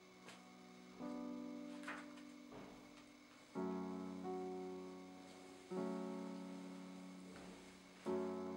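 Slow background piano music: four sustained chords, struck about two seconds apart, each left to ring and fade.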